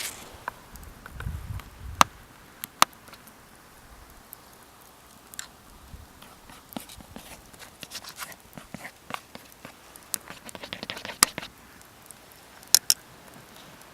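Campfire wood crackling and popping: irregular sharp snaps, a few of them loud, with a quicker run of small crackles about ten seconds in.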